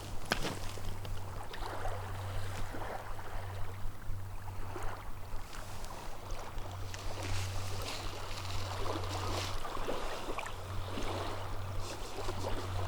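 Small waves lapping and splashing along a shoreline in irregular strokes, over a steady low rumble.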